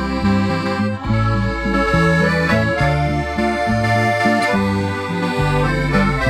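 Instrumental background music: sustained melody notes over a bass line that steps from note to note.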